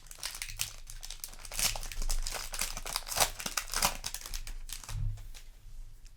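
Foil Yu-Gi-Oh! booster pack wrapper crinkling as it is handled and torn open, dying down about four and a half seconds in.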